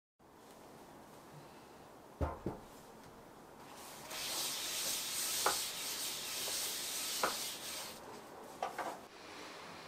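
Folded paper towel wiping oil over a nonstick frying pan: a scratchy rubbing that lasts about four seconds, with a few light clicks. Before it, two quick knocks come about two seconds in.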